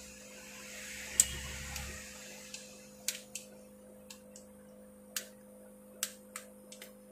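Sharp, irregular clicks of a smartphone's plastic and metal parts being handled and worked apart by gloved hands, over a steady low electrical hum. A brushing, rubbing noise swells over the first two seconds, with the loudest single click about a second in.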